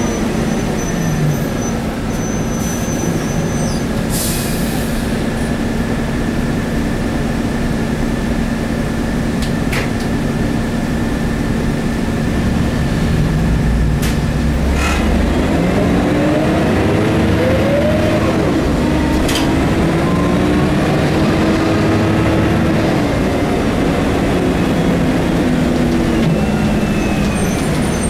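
Scania OSC11 11-litre six-cylinder turbocharged CNG engine of a rear-engined Scania L113CRB bus with a ZF five-speed automatic, heard from inside the passenger cabin. It runs steadily at first, with a short hiss about four seconds in and a few knocks from the body. About halfway through its pitch rises as the bus pulls away and accelerates, holds, then falls again near the end.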